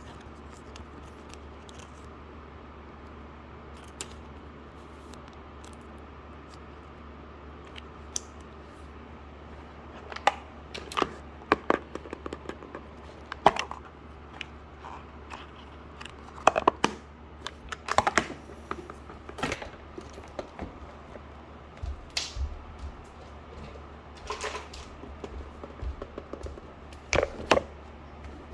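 Hands handling small packaging materials: scattered sharp clicks, taps and brief crinkles starting about ten seconds in, over a steady low hum.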